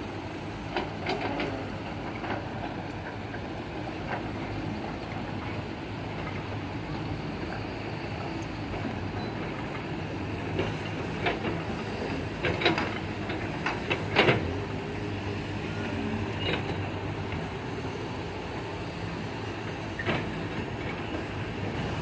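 Diesel engines of Caterpillar hydraulic excavators and dump trucks running steadily. Occasional sharp clanks and knocks come as the excavator buckets load soil into the trucks' steel beds, the loudest about two-thirds of the way through.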